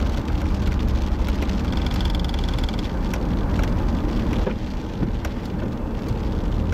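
A car driving in rain, heard from inside the cabin: steady low road and engine rumble, with scattered raindrops ticking on the windshield.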